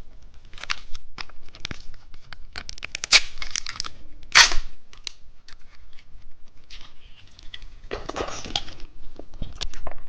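Plastic packaging of a small jelly sweet being torn open and handled: crinkling and crackling in irregular bursts, loudest about four seconds in and again near the end.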